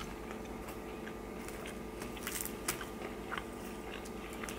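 A person chewing food close to the microphone: faint, irregular mouth clicks and crunches over a steady low hum.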